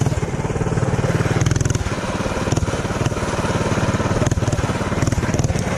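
Mini bike's small engine running under way, with a rapid even beat of firing pulses throughout, and a few brief knocks.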